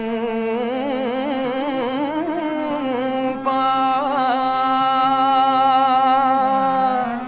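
Greek demotic folk music: a clarinet plays a heavily ornamented melody with wide vibrato and pitch bends over a steady low held note, rising about halfway to a loud long held note before bending down near the end.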